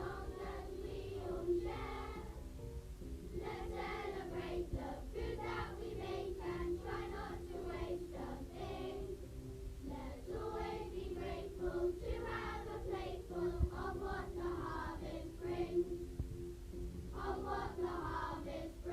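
A group of primary-school children singing a song together.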